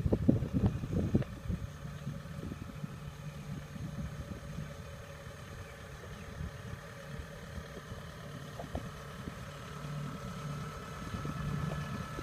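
Kubota tracked combine harvester's diesel engine running steadily as the machine drives closer, growing louder near the end, with a faint high whine in the last couple of seconds. A few low thumps in the first second or two.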